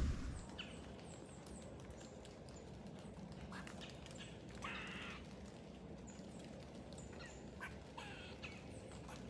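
Birds calling faintly in the woods: a few short harsh calls, the loudest about five seconds in, and scattered high chirps over a low steady background.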